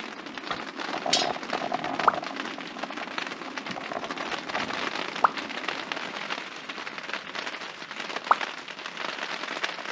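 Charcoal fire in a barbecue grill crackling and hissing steadily, with many small clicks and a few sharper pops, freshly fanned with a blow-pipe.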